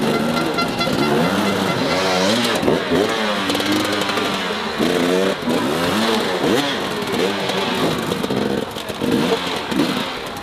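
Enduro dirt bike engines revving in repeated short blips, the pitch jumping up and falling back over and over, as the bikes are clutched and throttled up giant tractor tyres.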